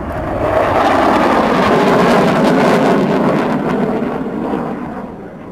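Loud jet noise from a General Dynamics F-111's twin TF30 turbofans in afterburner as it passes and climbs away. The noise swells, drops in pitch, and fades near the end.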